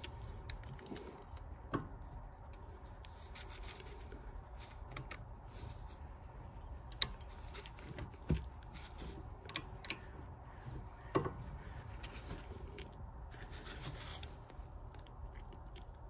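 A torque wrench and socket being worked onto a rear brake caliper bolt in a cramped space: scattered sharp metal clicks and knocks with light scraping and rubbing of the tool against the caliper.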